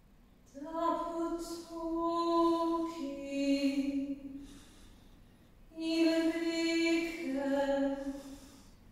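A woman singing solo without accompaniment: two slow phrases of long held notes, with a pause of about two seconds between them.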